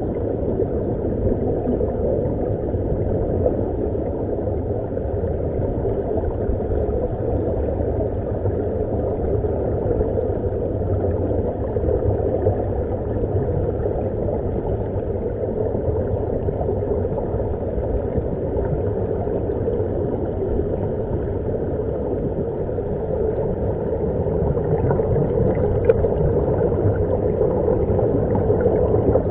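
Steady underwater rumble and rush of air bubbling out of surface-supplied dive helmets, heard with the camera underwater.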